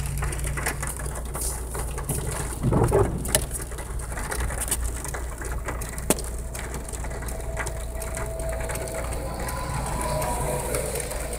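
Rain ticking on a car's windshield and roof over the steady low hum of the running engine, heard from inside the car. A short, louder rumble comes about three seconds in and a sharp click about six seconds in.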